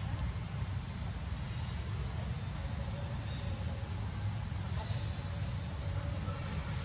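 Outdoor wind rumbling on the microphone, with a few faint, short, high bird chirps scattered through it.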